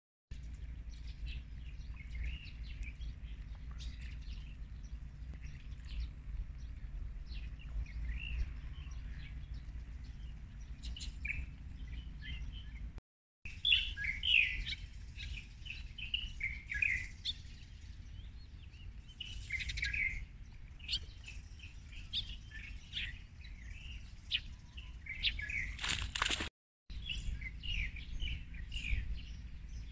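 Several birds chirping and singing in the early-morning dawn chorus, quick short calls and trills over a steady low rumble. The sound drops out briefly twice, about 13 seconds in and near the end.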